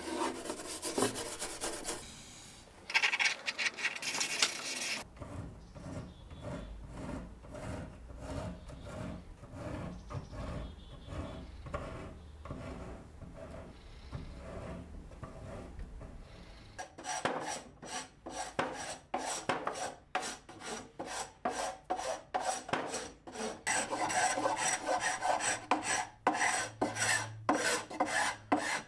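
Hand tools scraping and rubbing on bare wood: small scrapers, sandpaper and a brass wire brush working old paint out of the cracks and corners of a wooden chest of drawers. The strokes are quick and repeated, and a low steady hum runs under the middle part.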